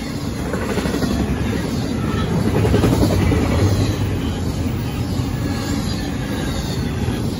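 Double-stack intermodal train's container well cars rolling past close by at high speed: a steady rush and rumble of steel wheels on rail, swelling loudest about three seconds in.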